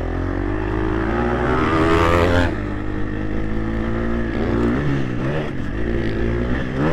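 Motocross bike engine revving under riding. It climbs in pitch for about two seconds, drops off sharply, then rises and falls a few more times.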